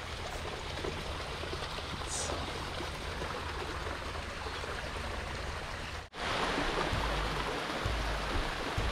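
Steady rush of water churning and foaming where flow pours into a small creek. About six seconds in the sound cuts out for an instant, then returns louder with a low rumble underneath.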